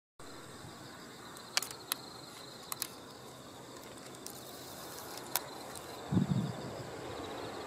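Crickets and other insects chirping steadily, with a few sharp clicks and a brief low thump about six seconds in. Underneath, a faint rumble from a distant Shinkansen train on the viaduct slowly grows louder.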